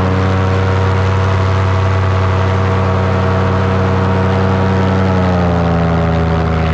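Paramotor engine and propeller running steadily in flight, a constant drone whose pitch drops slightly a little over five seconds in as the revs come down.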